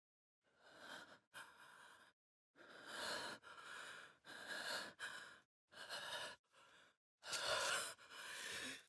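A person breathing heavily, about ten separate faint breaths in and out with short silent gaps between them, the sound of exhaustion after a fight.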